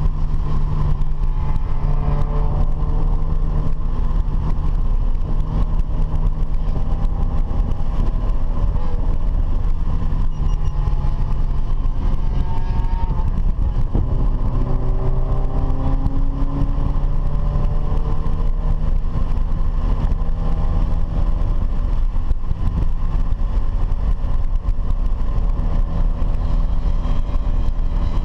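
Car engine running continuously under way, its pitch slowly rising and falling as the revs change, over a steady heavy low rumble.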